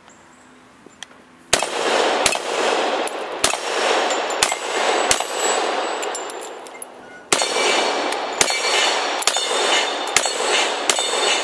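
FNP-45 Tactical .45 ACP pistol fired unsuppressed in two rapid strings, the first starting about a second and a half in and the second about seven seconds in, with roughly a shot every half second to second. Between the shots, steel targets clang and ring.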